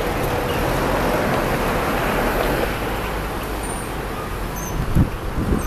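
Road traffic noise from cars and a light truck driving through the intersection: a steady rush of engines and tyres that eases after about half way. A few short low thumps near the end, like wind buffeting the microphone.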